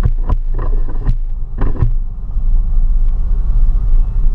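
Exhaust drone from a Flowmaster Super 10 muffler on a 2015 Ram 1500, heard inside the cab as a steady low rumble while driving. Several short knocks or clatters come in the first two seconds.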